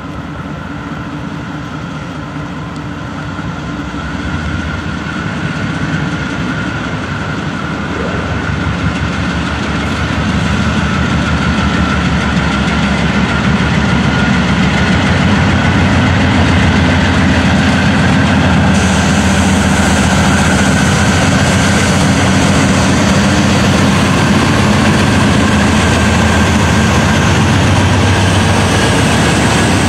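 Freight train headed by several diesel-electric locomotives approaching and passing close by. The engines' low drone grows louder over the first half and then holds steady, with a faint steady high whine above it.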